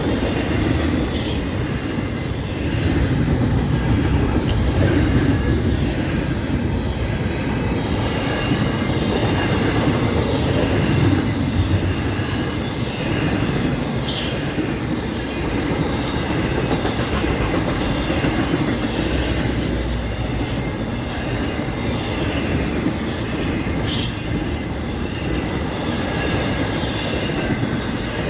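Florida East Coast Railway freight cars rolling past close by: a steady rumble of steel wheels on rail, with brief wheel squeals and clicks here and there.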